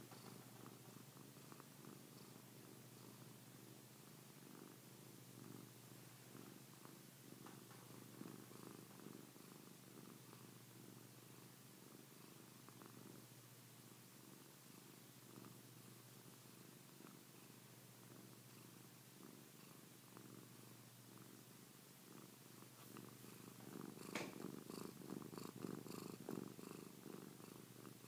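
Domestic cat purring steadily and faintly, a low, even rumble of rapid pulses. About 24 seconds in it grows louder for a few seconds, with a few clicks.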